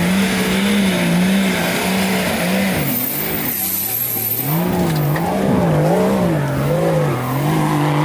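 An off-road 4x4's engine revving hard, its pitch held high, dipping, then rising and falling about once a second as the throttle is worked.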